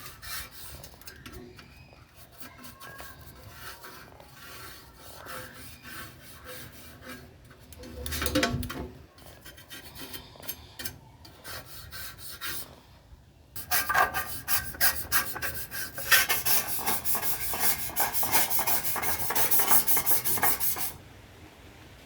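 Hand rubbing or scrubbing strokes, like sanding or brushing a surface. The strokes are light and irregular at first, then come fast, loud and evenly back and forth for several seconds before stopping short.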